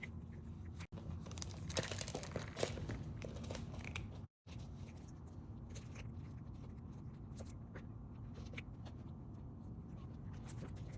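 A cat crunching and chewing dry treats, with quick crackly clicks that are densest about two seconds in.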